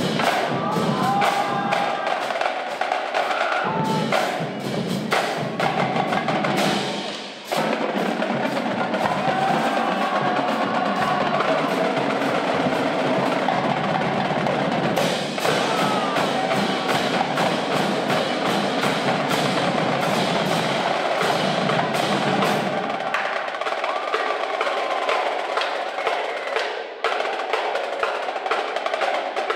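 Marching drumline playing a fast, dense cadence on snare drums, tenor drums, bass drums and cymbals, with a brief dip about seven seconds in.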